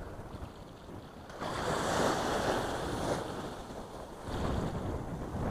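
Small waves breaking and washing up on a sandy beach, swelling louder about a second and a half in and again near the end, with wind buffeting the microphone.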